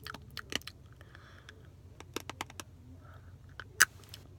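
Hard, dry macaroni clicking and cracking: a few quick clicks at the start, another run about two seconds in, and one loud snap near the end.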